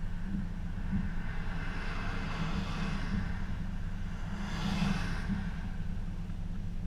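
Steady low vehicle rumble, with two swells of rushing noise rising and fading about two and five seconds in, like vehicles passing.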